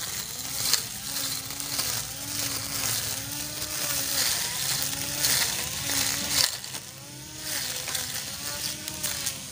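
Cordless electric grass trimmer with a metal cutting blade, running under load as it is swept through grass. Its motor whine rises and dips about once a second with each sweep, over sharp ticks and hiss of grass and grit striking the blade.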